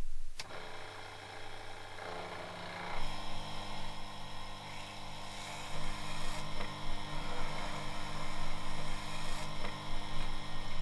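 Small benchtop mill/drill's electric motor switched on with a click about half a second in, then running with a steady hum.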